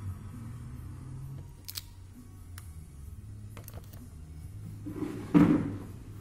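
Hands handling an opened smartphone on a workbench: a few light clicks, then a loud, brief scraping rustle about five seconds in, over a low steady hum.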